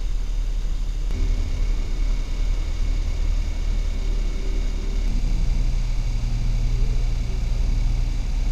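Steady low mechanical hum and rumble with faint high-pitched whines, changing slightly about a second in and again about five seconds in.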